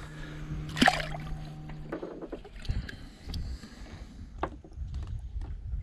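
A river salmon splashes briefly into the water as it is released by hand, about a second in. After that comes low water sloshing around the boat, with small clicks from handling the hook and line.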